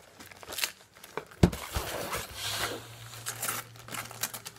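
Wrapping paper crinkling and rustling as an ornament is unwrapped, with scattered clicks and one sharp knock about a second and a half in.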